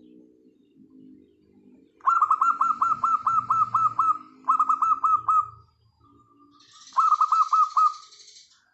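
Zebra dove (perkutut) singing: three loud runs of rapid, staccato cooing notes, the first about two seconds in and the last near the end, over softer, lower cooing.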